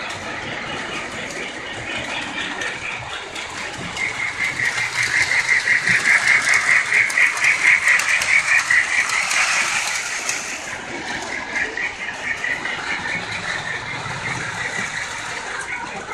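Model train running along its track, a rapid rhythmic clatter and whir that swells as the train passes close about a third of the way in, then fades, with lighter clatter continuing.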